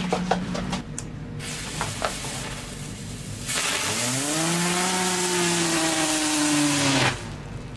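Ground spinner firework burning: a hiss that swells into a loud rushing spray about three and a half seconds in, with a whirling whine that rises and then slowly falls in pitch as it spins. It all cuts off suddenly near the end.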